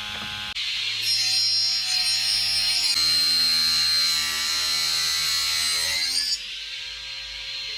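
Homemade PVC-bodied mini saw driven by a 775 DC motor, running with a steady whine that steps in pitch a few times. It grows louder and harsher from about one second in until about six seconds in, as the blade cuts wood.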